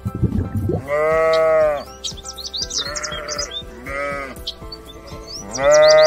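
Sheep bleating: a long bleat about a second in, two shorter ones in the middle, and another long one starting near the end, over background music.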